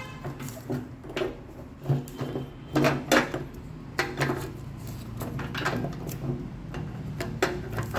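Scattered sharp plastic clicks and light knocks as a Bajaj Pulsar 220F's new fuel pump assembly is handled and its gasket and wiring connectors are fitted, about eight in all. A steady low hum runs underneath.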